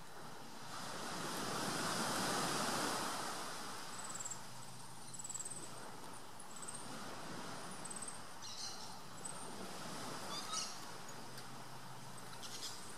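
Outdoor forest ambience: a rush of noise swells and fades over the first few seconds, then short, high chirps repeat through the middle, with a few brief rustles near the end.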